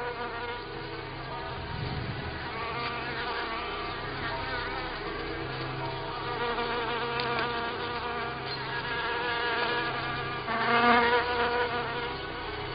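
Stingless bees buzzing in flight: a continuous, wavering drone of wingbeats that swells louder near the end.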